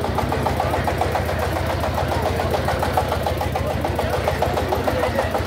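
A small engine idling steadily, with a rapid, even pulse.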